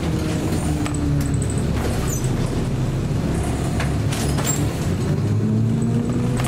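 Scania L94UB city bus heard from inside the cabin, its engine running steadily while under way. A whine rises in pitch twice, and there are a few sharp clicks and rattles from the body.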